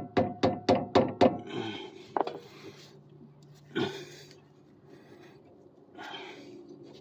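A quick run of about seven sharp knocks in the first second and a half, then a few separate scrapes and clunks of tools working on the car's front suspension.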